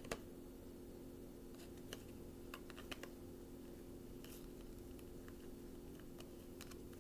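Faint, scattered soft clicks and taps of a deck of oracle cards being handled and shuffled in the hands, over a low steady hum.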